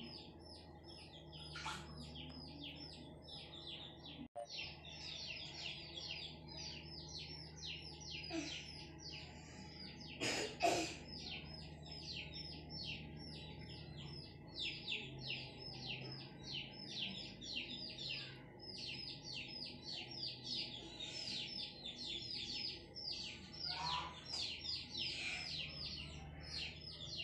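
Small birds chirping in quick, repeated high downward notes, several a second, without pause. There is a single knock about ten seconds in.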